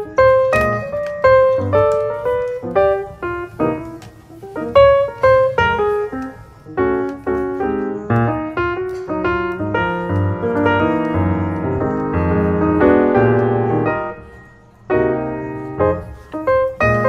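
Background music: solo piano playing a melody over chords.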